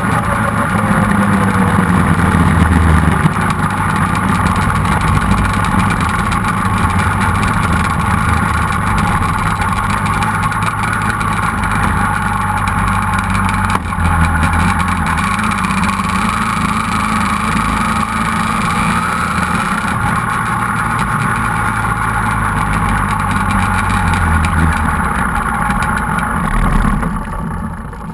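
A twin-engine sand drag quad running at low, fairly even speed under way. The engine note shifts a little now and then and fades away near the end.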